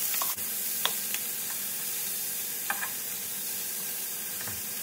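Raw shrimp sizzling in hot olive oil in a skillet, a steady hiss with a few short clicks and pops as the shrimp are set into the pan.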